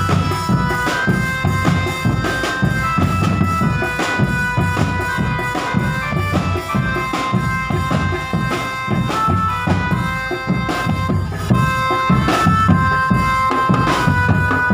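Live drum band music: drums beating a steady, fast rhythm under a wind instrument playing a melody of held notes.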